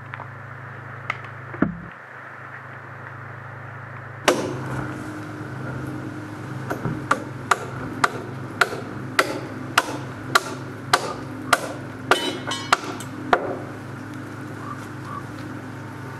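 Hammer nailing a wooden floor joist into place: a dozen or so sharp, evenly spaced blows, about two a second, starting a bit over six seconds in. A single heavy knock comes about four seconds in.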